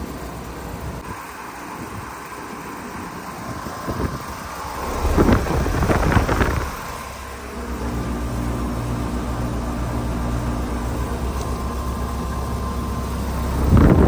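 2014 Payne PH13 heat pump outdoor unit running in heat mode: a steady electric hum with a fan whirring. The hum gets louder and deeper from about halfway through, with loud rumbling bursts on the microphone about five seconds in and again near the end.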